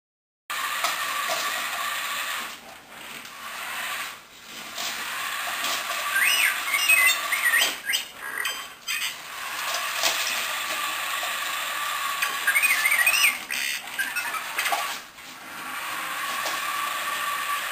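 Interactive R2-D2 toy robot's drive motors whirring steadily as it patrols, starting about half a second in and pausing briefly a few times. Twice, about six and twelve seconds in, it gives a string of warbling electronic beeps and whistles.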